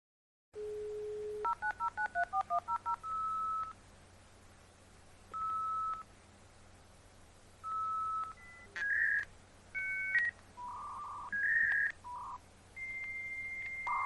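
Dial-up modem placing a call. A short steady tone is followed by a quick string of about eleven touch-tone digits being dialed, then separate beeps and changing tone pairs of the connection handshake. It ends with a long steady high tone.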